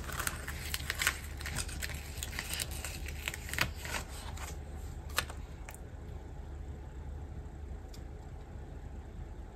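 Crackling and rustling of a paper sticker sheet being handled and a sticker peeled off its backing, busy for the first half and then sparse, over a steady low hum.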